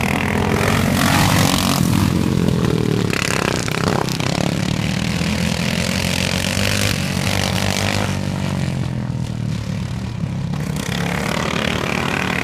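Small engines of racing lawn mowers running hard on the track, their pitch rising and falling as they accelerate and pass.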